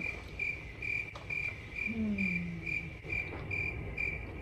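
Cricket chirping in an even rhythm, about two chirps a second. A brief low voice sound drops in pitch about two seconds in.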